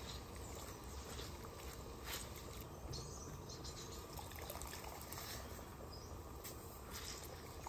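Quiet steady rush of a gas burner's flame under a pot, with a few faint drips and squelches as orange halves are squeezed by hand into the brine.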